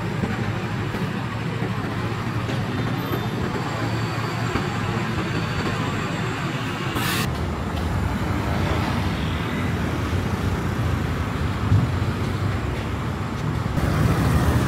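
Street traffic: a steady din of passing motor vehicles, with a short hiss about seven seconds in.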